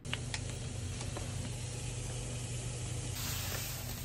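Bentonite cat litter poured from a bag into a plastic litter box: a steady hiss of falling grains, brighter from about three seconds in.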